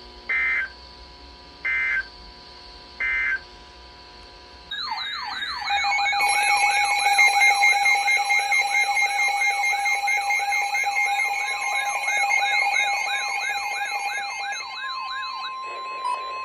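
Emergency Alert System header: three short electronic data screeches about a second apart. Then several electronic alert sirens start warbling together, rising and falling in pitch, and give way to a steady alert tone near the end, announcing a new severe thunderstorm warning.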